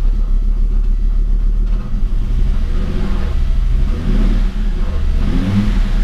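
1987 Audi 5000 CS Quattro's inline five-cylinder engine running just after a cold start, then revved in short throttle blips a couple of times in the second half, each rising and falling back. It revs out freely.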